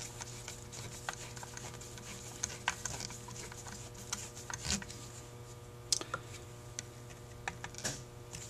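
Sparse light clicks and taps of small metal carburetor parts being handled as the choke thermostat cover of a Carter YFA carburetor is set and screwed down, over a steady low hum.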